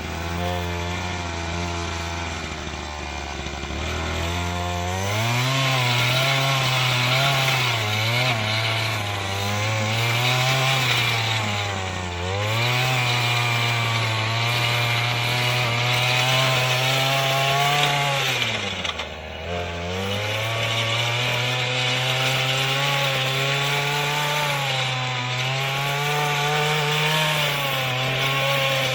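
Earthquake MC33 mini tiller's 33cc two-stroke engine running. It runs at a low, steady speed for the first few seconds, then is throttled up as it works the soil. The engine speed sags briefly about twelve seconds in and again near nineteen seconds, then picks back up.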